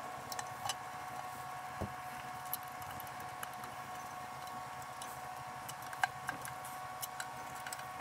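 Scattered small clicks and taps of hands handling fittings on a Homelite engine-driven water pump, over a steady faint hum with two held tones; one low knock comes about two seconds in and a sharper click about six seconds in.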